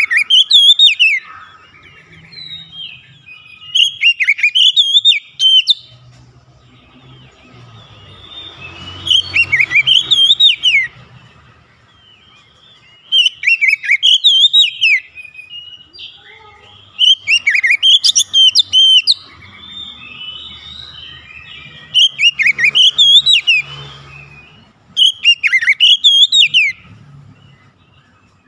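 Oriental magpie-robin singing: about seven loud bursts of quick, rising and falling whistled notes, each lasting a second or two and coming every four seconds or so, with softer chattering in between.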